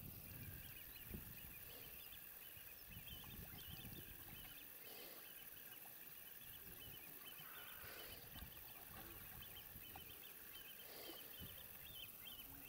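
Near-silent outdoor ambience with many faint, short high chirps scattered throughout.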